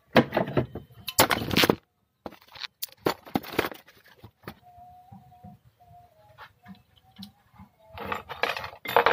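Handling of a nitrogen filling hose's metal end fitting at a fire extinguisher's valve: clinks and scrapes, with loud noisy bursts for over a second at the start and for about a second near the end.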